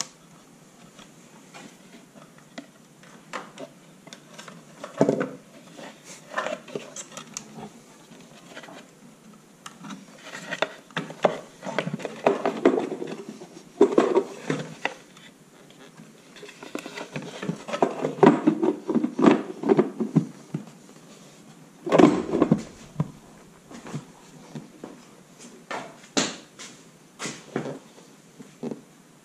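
Irregular clinks, knocks and rattles of tools and small metal parts being handled, in scattered clusters of sharp clicks with a few louder knocks.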